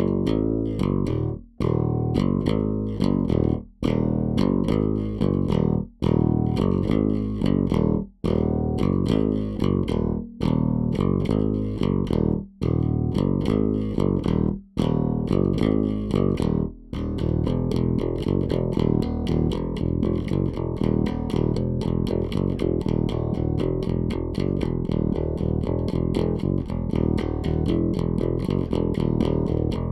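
Warwick Vampyre SN-5 five-string electric bass with active MEC pickups, played on the bridge pickup alone with the treble and bass EQ flat. It plays a riff that repeats with short breaks about every two seconds, then about halfway through moves into a faster, unbroken run of notes.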